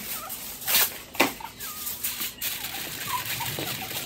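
Heavy-duty aluminum foil pulled off the roll and torn, then crinkling as it is spread over a baking dish, with two sharp crackles about a second in.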